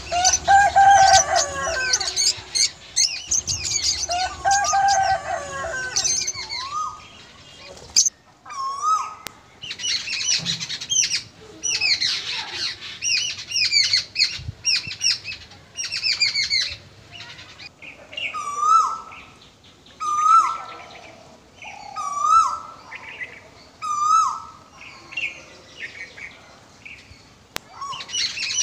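Many small birds chirping and twittering, with two lower, longer calls in the first few seconds and a short rise-and-fall call repeated about every two seconds past the middle.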